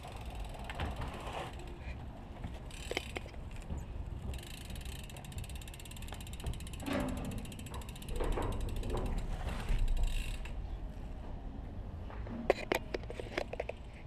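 BMX bike's rear hub ratchet clicking in a fast, even run as the wheel turns freely while the bike is handled, with a few sharp knocks near the end.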